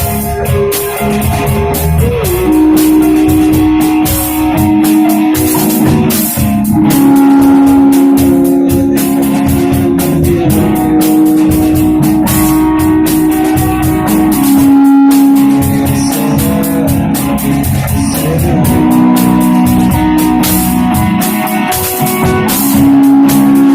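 Live shoegaze band playing: electric guitars hold long sustained notes that shift pitch every few seconds, over a drum kit with frequent cymbal hits.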